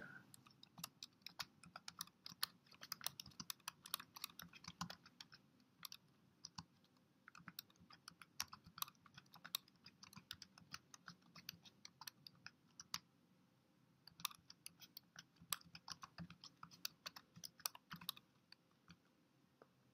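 Faint keystrokes on a computer keyboard: irregular runs of quick clicks with brief pauses between words.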